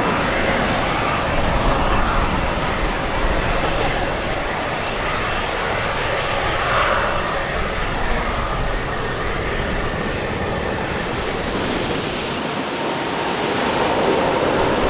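Jet airliners on landing approach: a steady rushing jet-engine noise. About eleven seconds in it turns brighter and hissier as a jet passes low overhead.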